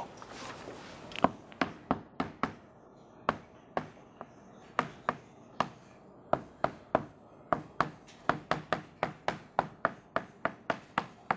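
Chalk writing on a blackboard: a run of sharp taps and short scrapes as words and symbols are written, sparse at first and coming faster in the second half.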